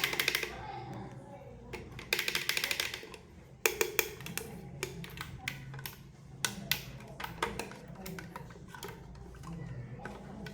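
Small plastic toy pieces and packaging being handled during unboxing: two runs of rapid rattling clicks, at the start and about two seconds in, then scattered sharp taps.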